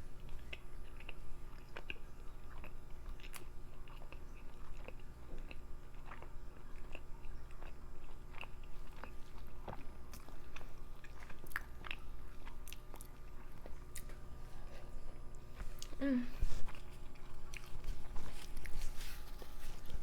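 Close-up chewing and biting of a curry-and-naan meal, with scattered wet mouth clicks and smacks. There is a brief hum about sixteen seconds in.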